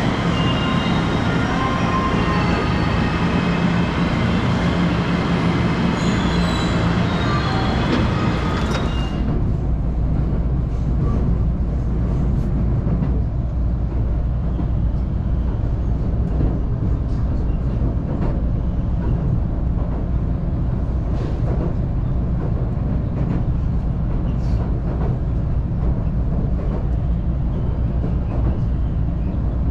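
A JR West 227 series electric commuter train at a station platform, with held tones over the platform noise, then from about nine seconds in the steady low running rumble heard inside the moving train, with faint occasional clicks from the wheels on the track.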